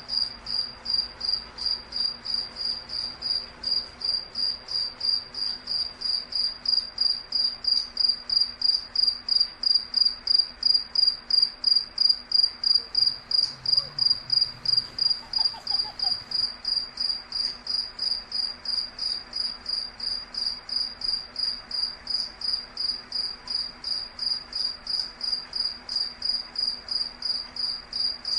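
An insect, cricket-like, chirping in a steady, even rhythm of about three high-pitched chirps a second, a little louder around the middle.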